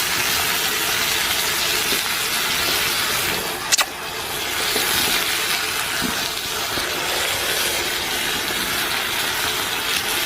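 Peas stir-frying in a hot pan with dark soy sauce just poured in: a steady sizzling hiss, with one sharp click about four seconds in.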